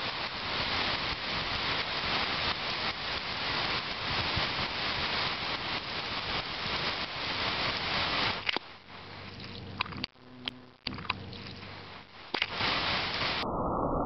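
Old Rain Bird 360° pop-up spray head hissing steadily as it sprays. About eight and a half seconds in the hiss falls away, leaving a few sharp clicks as the zone shuts down. A short burst of hiss returns before the sound cuts off abruptly.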